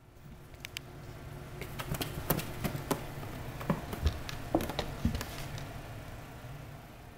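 A cat with only front legs clambering over a carpeted cat tower: scattered taps, soft thumps and scratches as its claws catch on the carpet, the sharpest a little past the middle, over a low steady hum.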